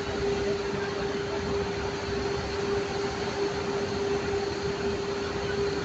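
Street traffic on a flooded road: buses and cars driving through standing water, a steady wash of noise with a constant hum running under it.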